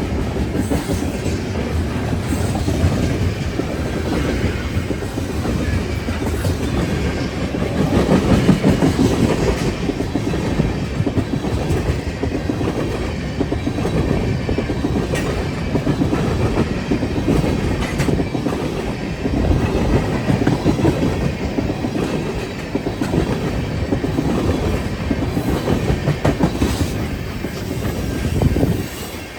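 Freight cars of a long CN freight train rolling past, their steel wheels clattering steadily over the rails.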